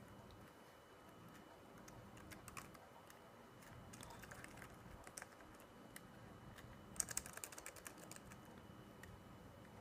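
Typing on a laptop keyboard: faint key clicks in short bursts, with the fastest and loudest run about seven seconds in.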